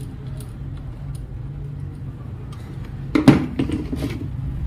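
Induction cooktop being reassembled by hand: a few faint small clicks, then a cluster of loud knocks and clatter from its plastic case and parts about three seconds in, over a steady low hum.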